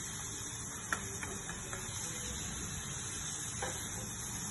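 Beef steaks sizzling steadily in butter in a frying pan, with a few faint ticks.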